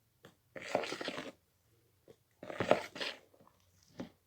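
Sticky homemade slime being stirred and pulled with a spoon: two short bursts of noise about two seconds apart and a brief one near the end. The slime is still a bit too sticky, not yet fully activated.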